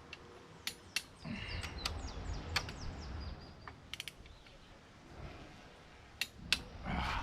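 Torque wrench working the ARP 2000 connecting rod cap bolts of a Mitsubishi 4G93 engine up to 45 ft-lb: a series of sharp, irregular metallic clicks, with a close pair a little after six seconds in.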